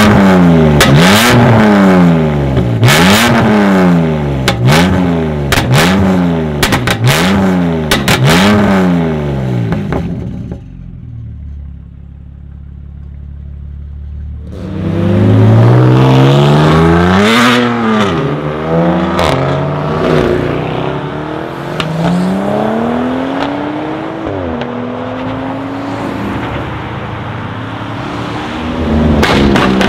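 BMW M2 Competition's twin-turbo straight-six, fitted with TTE740 upgraded turbos and a decatted Akrapovic exhaust, revved hard about once a second while standing, with crackles and pops between the revs. About ten seconds in it drops to a low idle. From about fifteen seconds an engine revs again in slower rises and falls.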